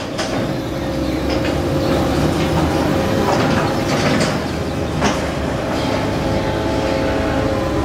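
Cargo-handling crane machinery running with a steady hum as a steel spreader frame lifts off a cargo rack, with several metal clanks and rattles.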